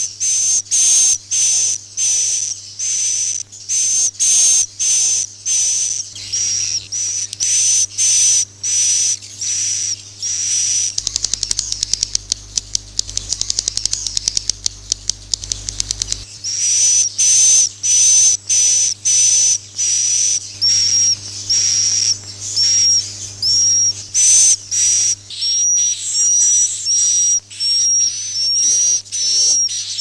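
Swiftlet calls played as a lure track to draw swiftlets into a bird house: short high chirps repeating about twice a second, with a run of rapid clicking twitter around the middle.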